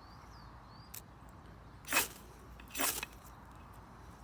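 Two quick scrapes of a Tracker knife's sharpened 90-degree spine anvil pushed down a ferro-rod fire steel, about a second apart: strikes throwing sparks into a feather stick that has not yet caught.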